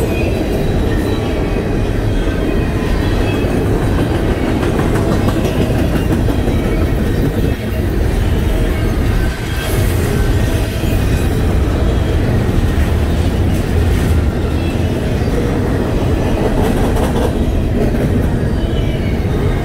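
Double-stack intermodal well cars rolling past close by: a steady, loud rumble of steel wheels on rail, with occasional sharp clicks.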